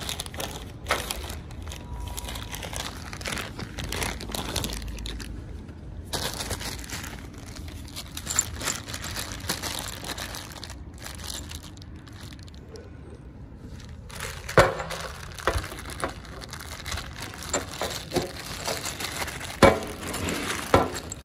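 Clear plastic bag of new bolts crinkling as it is handled, with the metal bolts clinking inside. There are several sharp knocks in the second half as the bag is set against a steel worktop.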